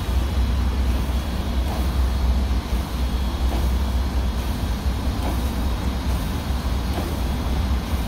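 1912 Polson #2, a Baldwin 2-6-2 steam locomotive, idling: a steady hiss of escaping steam over a low rumble, with faint soft beats about every couple of seconds.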